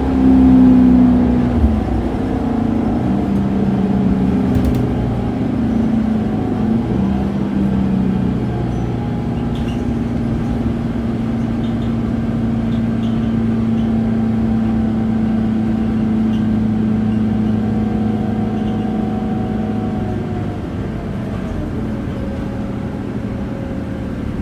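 Scania K280UB city bus's five-cylinder diesel engine running under way, heard from inside the passenger cabin along with road noise. The engine note shifts over the first several seconds, holds steady, and drops a little about 21 seconds in.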